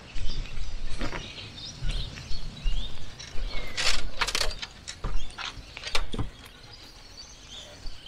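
Birds chirping outdoors over an uneven low rumble, with several sharp clicks and knocks.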